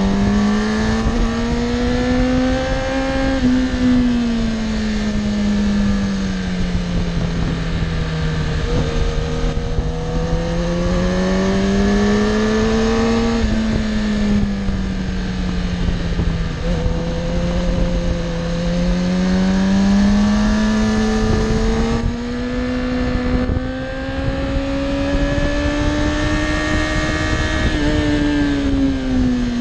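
Sport motorcycle engine under way. Its pitch rises as it accelerates and falls back as the throttle eases, several times over, with a steady rush of wind noise underneath.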